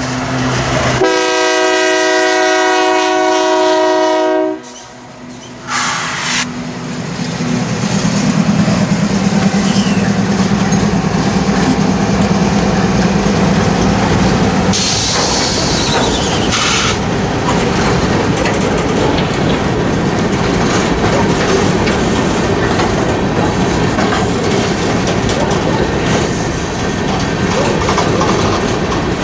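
Union Pacific diesel locomotives passing close by. A long multi-chime horn blast starts about a second in and cuts off at about four and a half seconds, followed by a short toot. Then the locomotives' engines drone as they go by, a brief wheel squeal comes at about fifteen seconds, and the coal hopper cars rumble and clack over the rails for the rest of the time.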